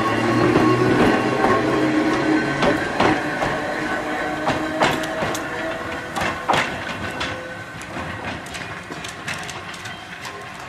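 Meitetsu Mo 750-class electric railcar passing close and pulling away. A steady motor hum dies down over the first few seconds, then the wheels click over rail joints and points. The sound fades as the car recedes.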